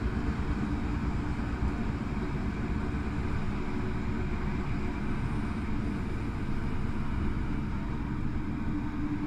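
Steady running noise of an S-Bahn train hauled by a class 143 electric locomotive with X-Wagen coaches: a continuous low rumble of the train rolling on the track.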